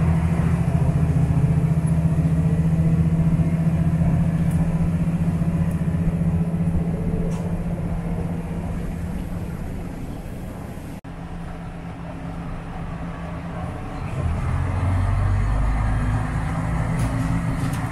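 Diesel railcar engine heard from inside the passenger cabin, running with a steady low drone as the train travels. The sound breaks off suddenly about eleven seconds in. Near the end a deeper, louder engine hum comes in while the train stands at a station.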